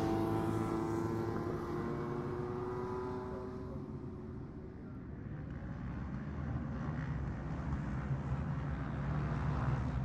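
Classic racing motorcycle engine at high revs passing and fading into the distance over the first few seconds, its pitch sagging slightly as it goes. A low rumble of distant engines follows and swells a little near the end.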